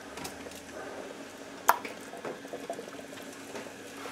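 Water at a soft boil in a canning pot, bubbling gently around glass jars on the rack, with one sharp click about a second and a half in.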